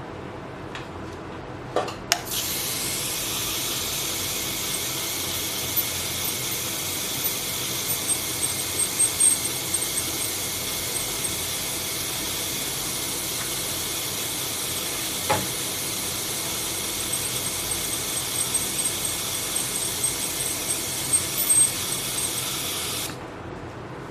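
Piezo ultrasonic dental scaler handpiece running with its water spray, its tip held against a quail egg's shell: a steady high hissing whine that starts about two seconds in and cuts off suddenly near the end. A few sharp clicks come near the start and once midway.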